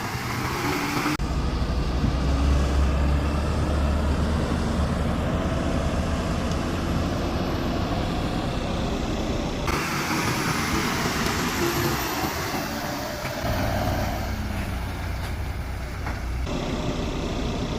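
Excavator's diesel engine running with a steady low rumble. The sound changes abruptly about a second in, again midway and near the end.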